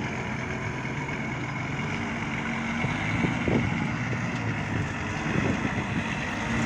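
Heavy diesel engine running steadily, with a low, even engine note.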